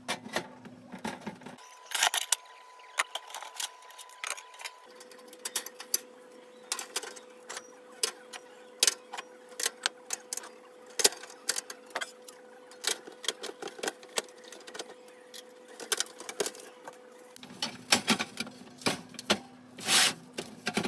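Steel sheet panels and pipe being handled and set down on a workbench: irregular clinks and knocks, some close together and some louder, over a faint steady hum.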